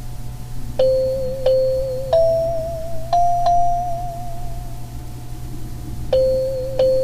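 Simple synthesizer tune: a slow melody of single held notes, each with a slight wobble, in a short five-note phrase that starts again about five seconds later. A steady low hum runs underneath, from recording through a cheap microphone.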